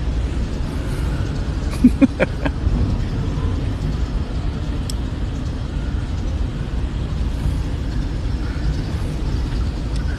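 Steady low rumble of background noise, with a quick run of clicks and knocks about two seconds in and one sharp tick about five seconds in.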